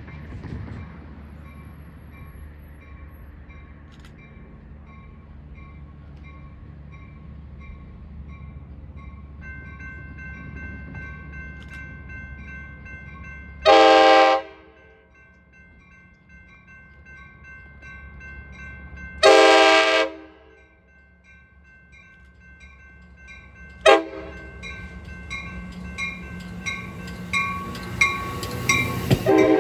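A train's air horn sounds the grade-crossing warning: two long blasts, a short one, and a final long blast beginning near the end, over a bell ringing in a steady rhythm. Wheels clicking over the rail joints grow louder near the end as the train draws closer.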